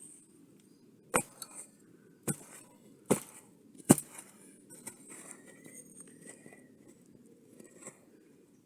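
Four sharp strikes a second or less apart, the last the loudest, then faint scraping: a digging tool chopping into the hard earth of a termite mound.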